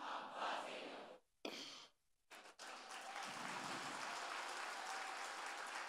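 Faint applause from a large congregation, with two brief drops to silence in the first half.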